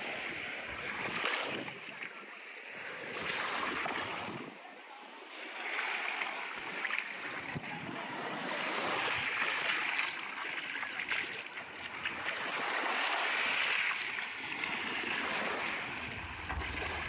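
Small waves washing onto a sandy beach, the wash swelling and fading every few seconds, with a brief low rumble near the end.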